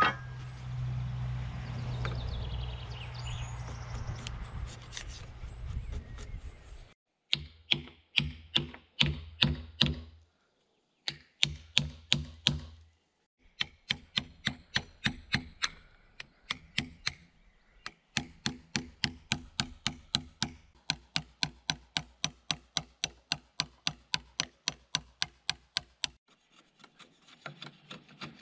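Wood being struck over and over with a hand tool while a log is worked, about two to three sharp blows a second in several runs that break off abruptly. Before the blows there are a few seconds of steady noise with a low hum.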